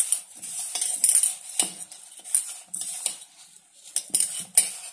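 Dry rice-flour mix being stirred and rubbed in a stainless steel bowl: irregular scrapes and clinks against the steel, with a soft gritty rustle of the flour.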